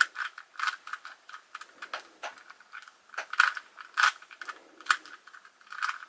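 Plastic Rubik's Cube layers being twisted in quick succession: an irregular run of sharp clicks and clacks, several a second, as the repeated left-then-up move sequence brings the cube back to solved.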